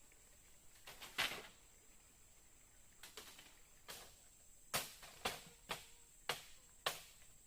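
A series of sharp knocks: one loud one about a second in, then more from about three seconds, coming roughly twice a second near the end, over a steady high insect drone.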